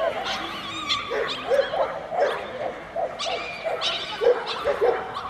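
Dog barking and yipping repeatedly, about two short barks a second, with high whining in between.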